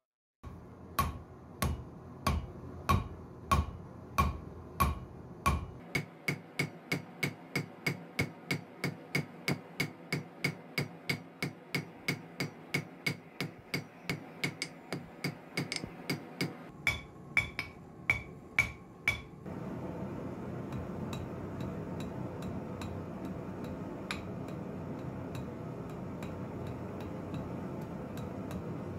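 Hand hammer striking hot steel on an anvil in a steady run of blows, about two a second at first, then quicker at about three a second, each with a light metallic ring. The hammering stops about two-thirds of the way through, and a steady low noise with a few faint ticks follows.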